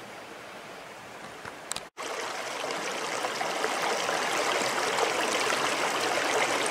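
Mountain creek water flowing over rocks. It is faint at first, then after a brief cut to silence about two seconds in, the water rushing through a shallow, rocky riffle is louder and steady.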